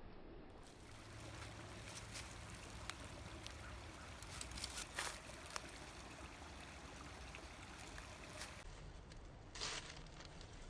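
Faint outdoor background hiss with scattered small clicks and rustles, several grouped about four to five seconds in.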